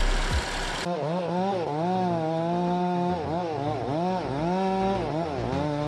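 Small two-stroke chainsaw engine revving up and down over and over, its pitch rising and falling every half second or so. This follows a brief stretch of noisy machine sound in the first second.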